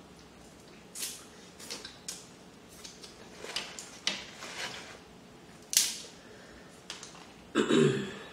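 Crab leg shell being cracked and pried apart by hand, with mouth sounds of sucking the meat from the shell: a string of irregular short clicks and crackles. The sharpest crack comes a little before six seconds in, and a longer, louder crunch comes near the end.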